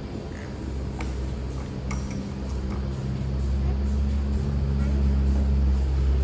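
A couple of sharp clinks of a metal spoon and tongs against glass topping jars as toppings are scooped onto a gelato cup, over a low steady hum that swells in the second half.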